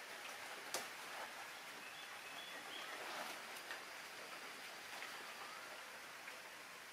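Light rain falling on garden foliage, a faint steady patter, with one sharp tick under a second in.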